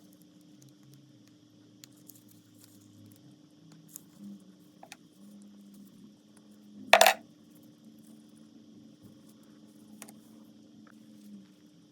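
A small metal part landing on a hard surface about seven seconds in: one sharp clink with a short ring. Faint scattered clicks of handling come before and after it.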